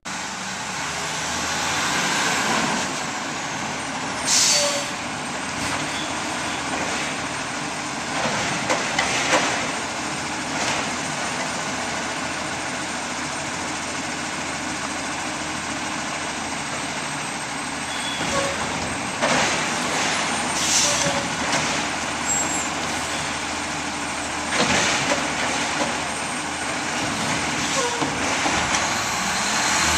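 Automated side-loader garbage truck's diesel engine running steadily, with short hisses of air released several times.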